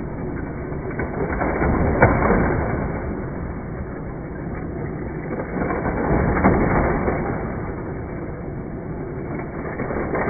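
Hot Wheels motorized track booster running as die-cast cars rattle around the plastic track loops, the whirring swelling and fading as cars pass. Sharp plastic clacks sound about two seconds in and again about six and a half seconds in.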